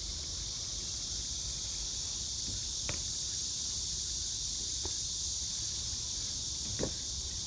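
Steady high-pitched insect chorus, with three faint clicks spaced about two seconds apart.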